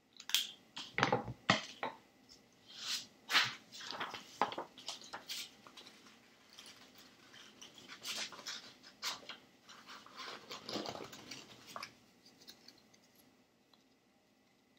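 Sheets of construction paper being handled and rustled, then scissors snipping through the paper to cut out a small circle, a run of short crisp clicks and rustles that thins out near the end.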